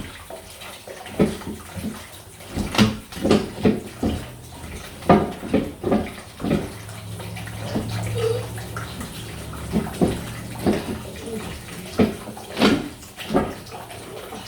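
Water running and splashing from pipework that a stopcock not fully shut off is still feeding, with irregular knocks and clunks throughout.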